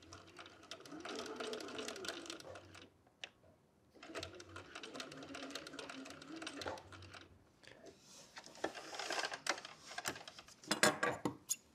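Domestic sewing machine stitching in two runs of about three seconds each with a short stop between, the second run turning a pivoted corner of the seam. A few sharp clicks come near the end.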